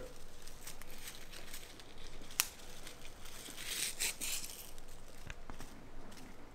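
Dry Turkish basil leaves crackling and rustling as they are stripped by hand from their stems and crumbled onto a tray. There is a sharp click about two and a half seconds in and a denser flurry of crackling around four seconds.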